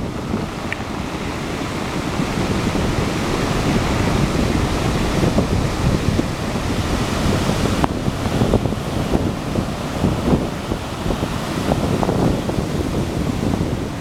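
Heavy surf breaking and washing over a rocky shore, a continuous loud rush that swells in the middle of the stretch, with wind buffeting the microphone in a low rumble.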